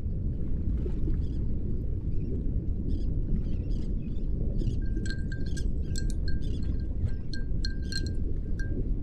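Steady low rumble of a ship-at-sea ambience bed with faint scattered ticks. About five seconds in, a bright chime-like note starts repeating at one pitch, roughly three times a second in an uneven rhythm.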